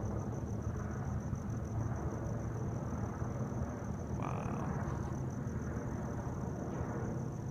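Low steady drone of a distant helicopter circling overhead, under a high, steady, pulsing chirp of night insects. A brief hiss rises about four seconds in.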